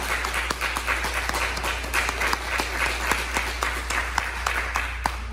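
Congregation applauding with a quick patter of many hand claps.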